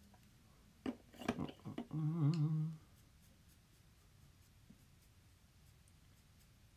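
A man hums a short wavering note, under a second long, about two seconds in, just after a quick cluster of small clicks and scrapes.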